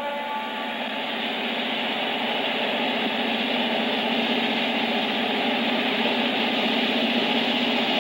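Frisco diesel freight locomotives running as they approach, their engine sound a dense steady rumble that grows slightly louder as they near.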